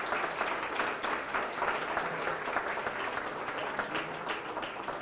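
Audience applauding steadily, many hands clapping at once, gradually easing off toward the end.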